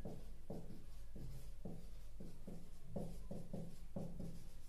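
Marker pen writing on a whiteboard: short separate strokes, about three a second, as a word is written out.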